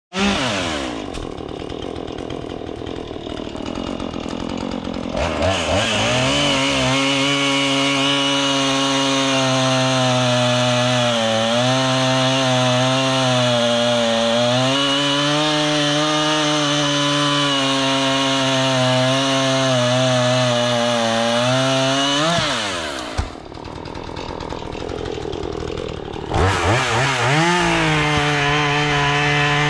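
Chainsaw idling, then revved to full throttle about five seconds in and held there, its pitch dipping and wavering as it cuts through wood. Near the end it drops back to idle for a few seconds, then revs up again.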